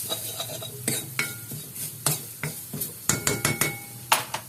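A spoon stirring mushrooms and crushed spices frying in ghee in a pan, knocking and scraping against the pan with a faint sizzle underneath. About three seconds in, a quick run of clinks rings briefly.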